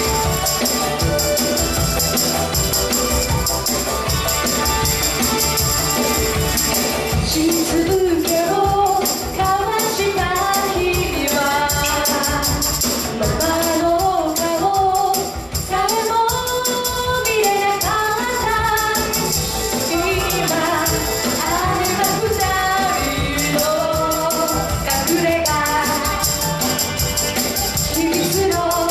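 Live song played on electric guitar with a woman singing, and a tambourine shaken and struck in a steady jingling rhythm throughout.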